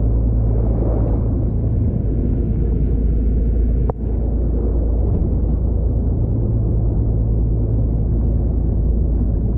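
A fishing boat under way at trolling speed: a steady low engine rumble, with water rushing and splashing along the hull close to the microphone. A short click breaks it about four seconds in.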